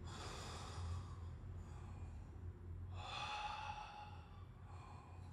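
A man breathing deeply in and out through the mouth while holding a stretch: two long, slow breaths a few seconds apart.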